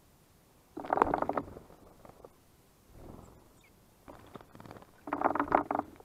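Great tits bathing in a shallow bird bath, splashing water with their wings and bodies in short bursts: one about a second in, then two more close together near the end.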